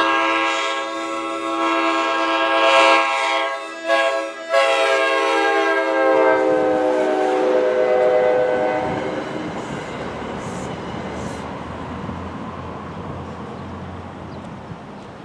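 An NJ Transit train's multi-chime air horn sounding a chord in long blasts, broken by two brief gaps about four seconds in and stopping about nine seconds in. The train's rumble follows and slowly fades.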